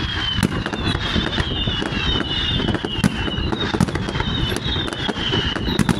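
Fireworks display: a rapid, continuous run of sharp bangs and crackles from bursting shells. Repeated whistles fall in pitch, each lasting about a second, and several overlap.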